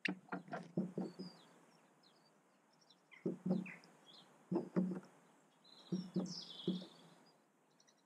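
Clusters of quick knocks and taps from a blackcap pecking at seed and fat on a mesh feeder tray, in four short bursts. Faint high bird chirps run underneath, with a brighter call around six seconds in.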